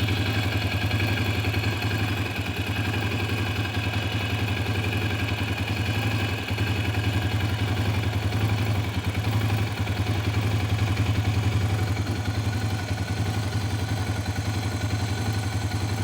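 Yamaha Raptor 700R's single-cylinder four-stroke engine idling steadily through its exhaust, warmed up after five minutes of running.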